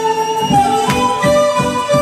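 Traditional Andean music for the tunash dance: a held, singing melody line over a regular low beat of about three strokes a second.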